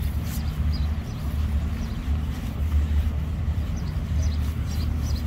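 Outdoor waterfront ambience: a steady low rumble, with a few faint high chirps.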